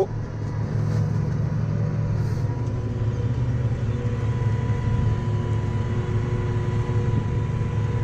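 Six-cylinder diesel tractor engine running steadily under load while pulling a plough, heard from inside the cab, with a faint steady whine over the low drone.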